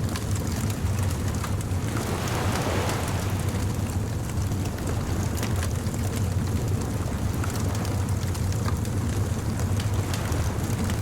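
Beach bonfire crackling, with many small sharp pops scattered over a steady low rumble, and a soft wash of surf swelling about two seconds in.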